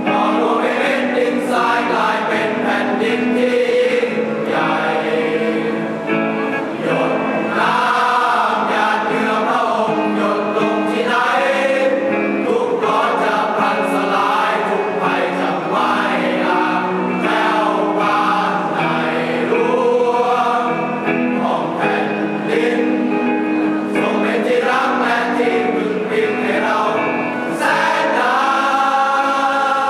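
A choir singing a song at a steady level, with voices holding and changing sung notes.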